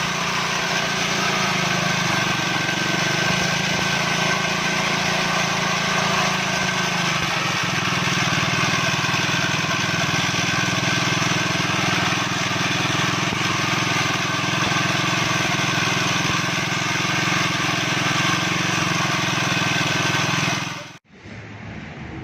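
Small engine of a grass-cutting machine running steadily at constant speed. It cuts off suddenly near the end, leaving a quieter steady hum.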